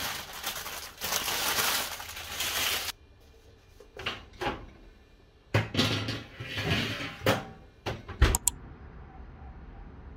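Baking paper being crumpled, a dense crinkling rustle for about three seconds. Then a black metal baking tray is handled and taken away: a few knocks and clatters, ending with a couple of sharp clicks.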